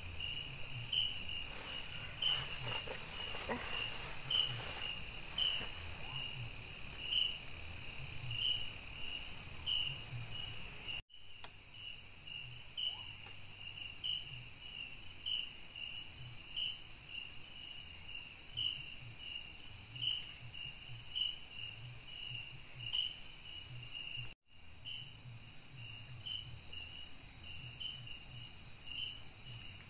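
Night insects in the forest, crickets among them: a steady high-pitched buzz with a regular chirp repeating about one and a half times a second. The whole sound cuts out abruptly twice, for a moment each time.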